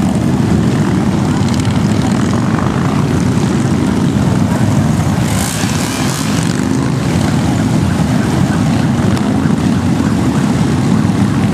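Many large cruiser motorcycles riding past in a slow parade, their engines making a continuous, overlapping low rumble.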